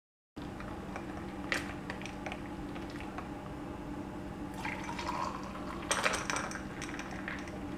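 Falsa sharbat poured into a glass over ice, a short filling sound about halfway through, with a few glass and ice clinks before and after it, over a steady low hum.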